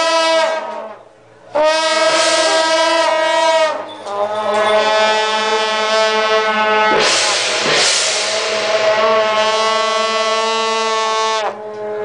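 A wind instrument playing long held notes, each at a steady pitch, with short breaks about a second in and just before four seconds. A brief noisy crash comes about seven seconds in.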